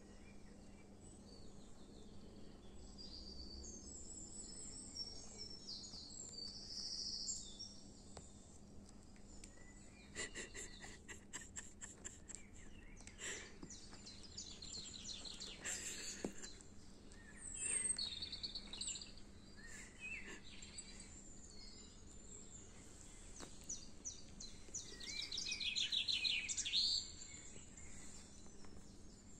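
Birdsong, many short chirps and trills, played from a nature video through a phone's small speaker, with a faint steady hum underneath. A run of rapid clicks comes about ten seconds in.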